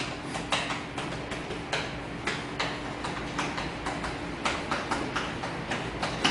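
Chalk writing on a blackboard: a quick, irregular run of tapping and scratching strokes, about four a second, as characters are written.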